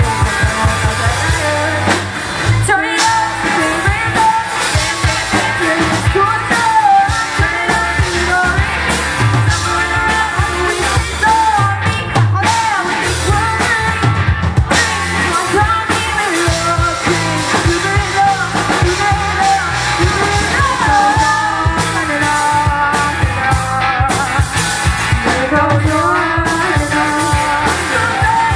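Live rock band playing: a lead singer over drums, bass and guitar.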